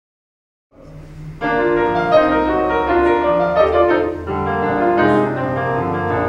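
Fazioli concert grand piano playing the introduction to a 1920s popular song. It begins softly about a second in and is played out fully half a second later.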